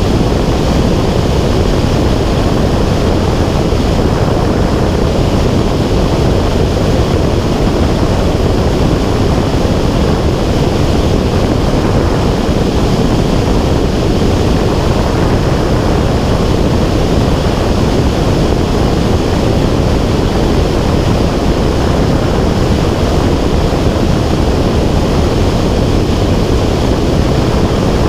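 Steady loud rush of wind buffeting a camera's microphone in flight, with no breaks or distinct events.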